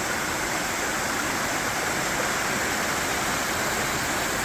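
Small waterfall crossing a trail: water falling and rushing over rocks in a steady, unbroken rush.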